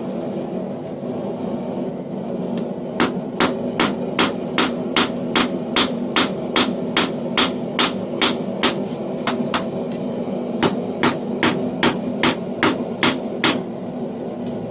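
Hand hammer striking a small bar of hot square steel on an anvil: a steady run of sharp, ringing blows at nearly three a second. The blows start a few seconds in, pause briefly partway through, and are heard over a steady hum.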